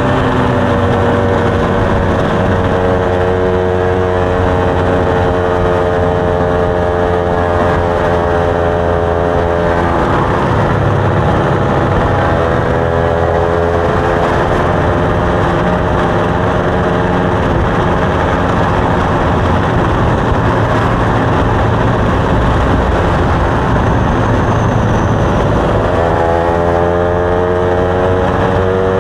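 Motorcycle engine running under way. Its pitch climbs over the first several seconds as it accelerates, then it holds steady through a long stretch of steady rushing noise, and it climbs again near the end.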